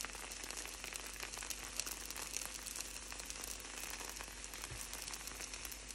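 Thin pancake frying in a hot pan: a steady, quiet sizzle with fine crackling.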